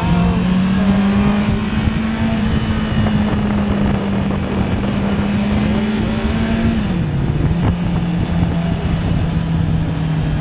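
Honda CB650R's inline-four engine with stock exhaust, running at a steady note. The pitch rises slightly near the start, then drops to a lower steady note about seven seconds in.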